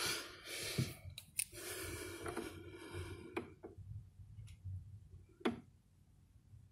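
Handling noise of a small metal hand tool being brought to a turntable tonearm's bearing screws: rustling through the first three seconds, then a few sharp separate clicks, the loudest about five and a half seconds in.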